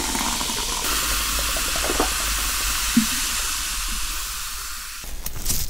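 Cola fizzing in a glass over ice, a steady close-up hiss of bubbles that cuts off abruptly near the end, with a couple of faint knocks in the middle.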